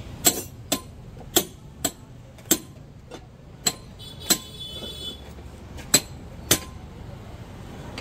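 Hammer blows on metal at a motorcycle wheel rim during a tyre change: about ten sharp strikes at uneven intervals, each ringing briefly.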